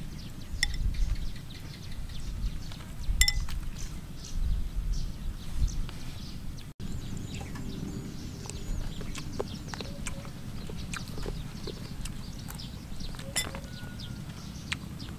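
Eating sounds: scattered light clicks of a metal spoon and chopsticks against a soup bowl, with chewing and slurping, over a steady low rumble.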